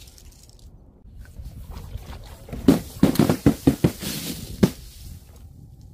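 Paint-filled balloons bursting and splattering against a tiled wall: a quick run of sharp wet pops and splashes between about two and a half and five seconds in, the last one the loudest.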